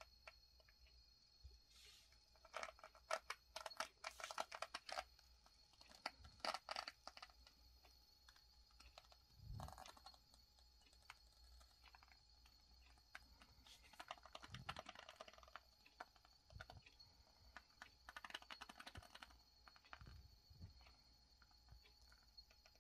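Brushless-motor RC crawler with a belt-driven 3542 1000kv outrunner creeping at very low throttle: several short spells of faint, quick clicking and rattling from the drivetrain, separated by pauses, over a faint steady high whine.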